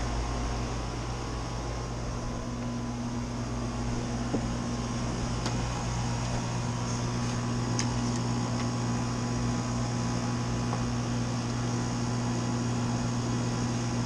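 Outdoor air-conditioning condenser unit running with a steady hum, with a few light clicks about a third and halfway in as wiring and a contactor are handled.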